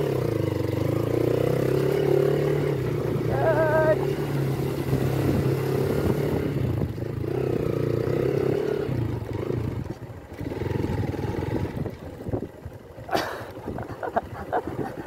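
Motorcycle engine running steadily under way on a loose gravel track. After about ten seconds the engine note drops and turns uneven, and a sharp knock comes about thirteen seconds in.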